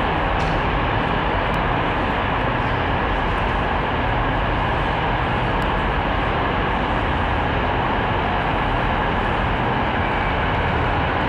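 A train running, a steady, even noise.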